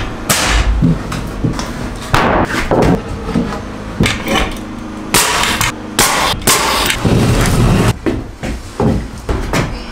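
A series of sharp shots from a pneumatic framing nailer driving nails into 2x4 wall framing, mixed with knocks and thuds of the wooden frame being handled.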